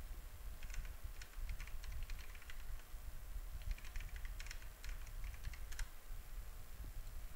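Computer keyboard typing: two bursts of quick keystrokes about a second apart as a username and then a password are entered.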